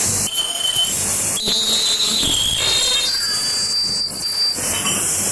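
Ultrasonic plastic welding machine at work: a high-pitched whine over a hiss, stepping between a few steady pitches, louder from about a second and a half in and easing off near the end.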